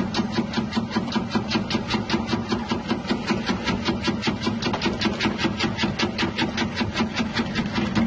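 Electric tuber-chip slicer with a wavy blade, driven by a 180-watt motor, running steadily with a fast, even chopping rhythm of about five strokes a second over a low motor hum.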